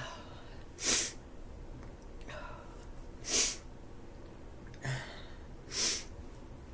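A woman with a head cold sneezing three times in a row, about two and a half seconds apart, each sneeze preceded by a short voiced in-breath.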